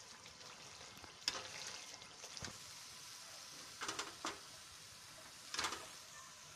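Hot ghee sizzling faintly in a non-stick kadai as a fried malpua is lifted out on a perforated steel slotted spoon. There are a few light knocks of the spoon against the pan, about a second in, around four seconds in and again near the end.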